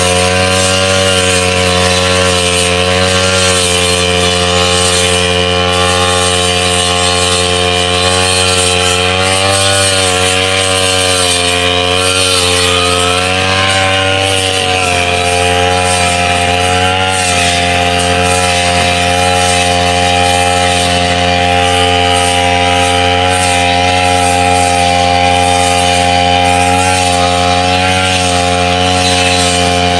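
Backpack brush cutter's two-stroke engine running hard while its blade cuts through tall wet grass. The engine note dips in pitch a few times as it takes the load, then picks back up.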